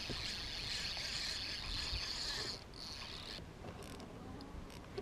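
Spinning reel being cranked, its gears whirring steadily for about three seconds, stopping, then whirring again briefly.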